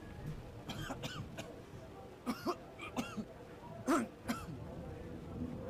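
A man coughing in several short fits of two or three coughs each, about a second apart, ending roughly four and a half seconds in.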